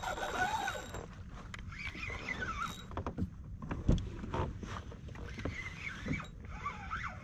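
Sounds of a fishing kayak on the water: a few sharp knocks, the loudest about four seconds in, over a low rumbling haze, with short wavering high squeaks now and then.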